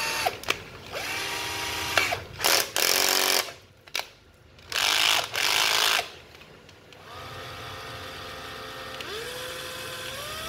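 National EZT160 7.2 V cordless drill-driver motor running in several short runs, its whine gliding up in pitch as the trigger is squeezed; the trigger has been rebuilt for variable speed. Two louder, rougher stretches come in the middle, then the motor runs quieter and steps up in pitch toward the end.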